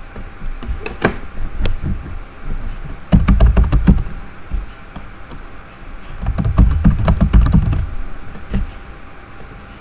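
Computer keyboard typing as payment card details are entered: a few single keystrokes about a second in, then two quick runs of keystrokes, with one last click near the end.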